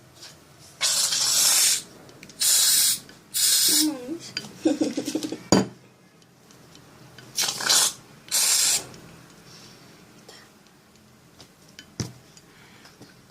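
Aerosol can spraying in five short hissing bursts, two close together near the start, one more soon after, and two more about halfway through. A brief child's voice and a couple of sharp clicks come between them.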